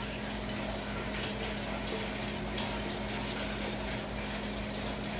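Epoxy-and-acetone solution poured in a steady stream from one glass mason jar into another, running off a spoon into the jar. A steady low hum runs underneath.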